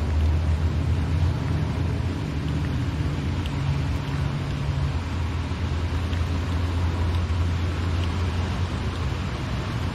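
Car cabin noise while driving in the rain: a steady low engine and road rumble under an even hiss of rain and wet road, with a few faint taps of drops. The low hum changes about halfway through.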